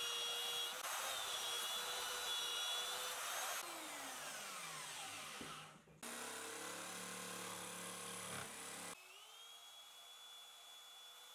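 Electric belt sander running with plywood pressed against its belt, heard in several short stretches that break off abruptly. About four seconds in the motor winds down with a falling pitch, then starts running again. Near the end it spins up with a short rising whine.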